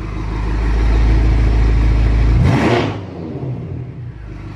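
BMW M6's twin-turbo V8 revving hard and held, building over the first two seconds, then let off about two and a half seconds in with a short rushing burst, after which the engine drops back toward idle; the turbos screaming.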